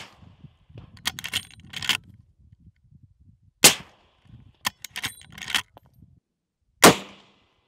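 Suppressed .45-70 lever-action rifle with a SilencerCo Hybrid 46M fired twice, about three seconds apart. Before each shot comes a quick run of metallic clacks as the lever is worked to eject the spent case and chamber the next round.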